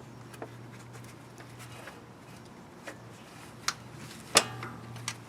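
A few sharp metallic clicks and taps from screwdrivers working a drive belt onto the engine's pulleys, the loudest a little after four seconds with a brief ring. A faint steady hum runs underneath.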